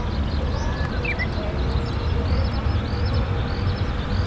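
Low, steady rumble of a Boeing 787-8's Rolls-Royce Trent 1000 engines at low thrust as the airliner lines up on the runway. Many birds chirp over it.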